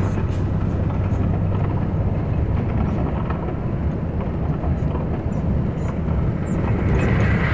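Cabin noise of a vehicle driving in heavy rain: a steady low rumble of engine and tyres under the hiss of rain and road spray, with a hiss that grows louder near the end.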